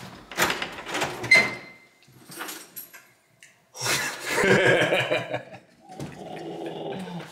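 A quick series of hard knuckle knocks on a wooden door, then the door opens and a person lets out a loud, surprised cry.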